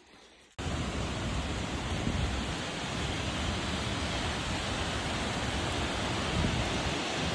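Steady rushing of a waterfall, starting abruptly about half a second in.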